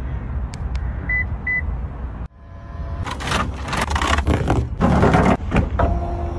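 Two short high beeps about a second in from a Toyota Tundra pickup answering a key-fob press. After a cut, a run of loud irregular rustling noise, with two brief low steady tones near the end.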